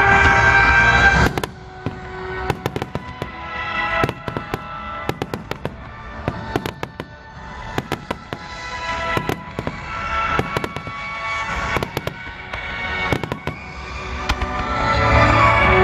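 Fireworks crackling and popping in many rapid sharp cracks over music. Loud music fills about the first second, then drops away and carries on quieter under the crackle, swelling again near the end.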